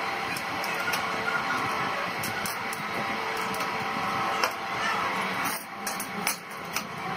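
Hand screwdriver driving a small screw into the wheel fitting of an aluminium sliding-glass channel, with scattered light clicks and scrapes of metal. The sound drops away briefly about five and a half seconds in.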